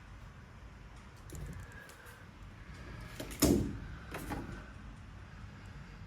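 Packaging being handled: plastic trays and box parts shifting and rustling, with one sharp clack about three and a half seconds in and a softer one just after.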